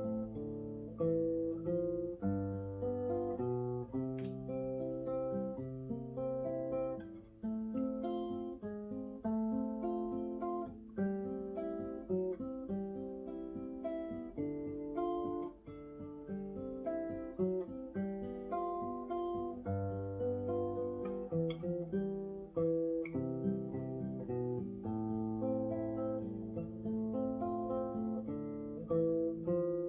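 Solo acoustic guitar playing an instrumental melody: single plucked notes over held bass notes, with some strummed chords.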